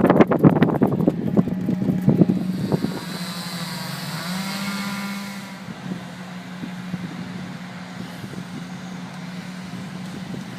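A motor vehicle's engine running steadily, with a rise in its note around four seconds in; a run of knocks and rattles in the first three seconds.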